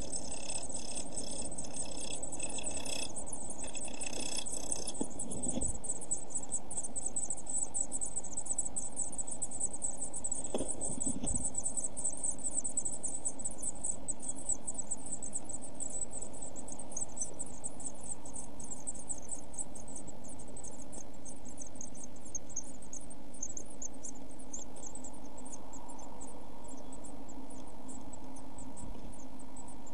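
Blue tit chicks about a week old in a nest box giving rapid, high-pitched begging calls, several a second, over a steady low hum. The calling is fullest in the first five seconds, while a parent is at the nest feeding them, and there are faint knocks about five and eleven seconds in.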